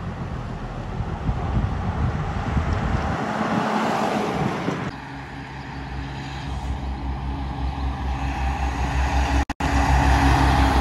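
Heavy diesel trucks passing on the road. A stock truck and trailer's engine and tyre noise swell as it draws close and goes by. After an abrupt cut, another truck's engine drones louder near the end as a prime mover pulling a refrigerated semi-trailer comes past.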